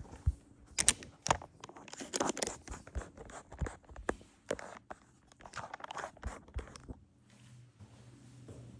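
Handling noise close to the microphone: rustling and scraping with sharp clicks and knocks, stopping about seven seconds in.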